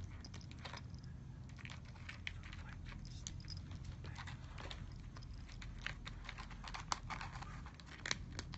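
Cat eating from a bowl: faint, irregular crunching and clicking as it chews its food.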